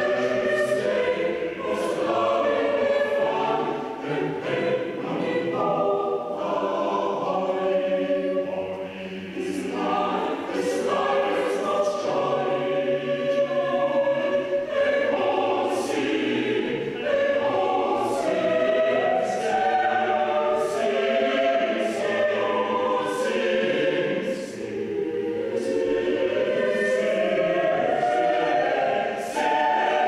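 Mixed chamber choir singing unaccompanied in several parts, with crisp consonants sounding together at many points.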